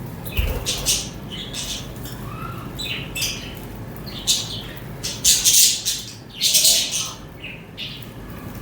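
Several budgies (budgerigars) chirping and chattering, with short high chirps and harsher squawks; the loudest squawks come about five and six and a half seconds in.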